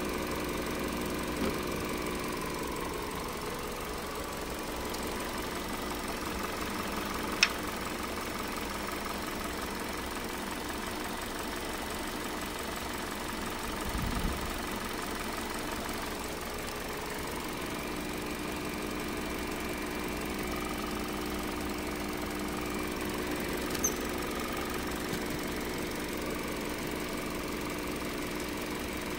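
Car engine idling steadily under the open hood, running at roughly 900 to 1200 rpm. A sharp click sounds about a quarter of the way in, a dull thump about halfway, and a smaller click later.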